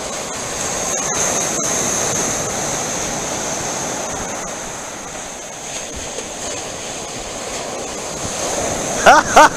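Sea surf breaking on a shingle-and-sand beach in a heavy swell, a wave swelling about a second in and then easing. Near the end a person's voice cuts in loudly in short, quick repeated bursts.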